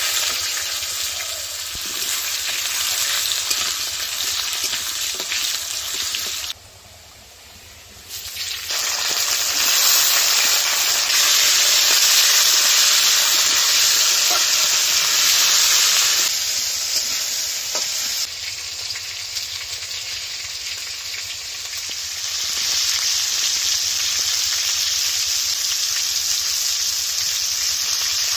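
Vegetables frying in hot oil in a pan, sizzling steadily. The sizzle drops away for about two seconds a quarter of the way in, then comes back louder.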